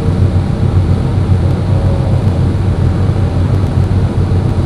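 Steady low drone of the Mutsu Bay car ferry's diesel engines running under way, heard from the open upper deck, with an even rush of wind and wake noise over it.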